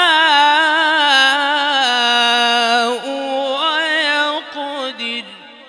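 A male Quran reciter chanting in melodic tajweed style, drawing out the final syllable of "yashā'" in one long ornamented note with a wavering pitch. There is a brief dip about three seconds in, then the note continues and dies away shortly before the end.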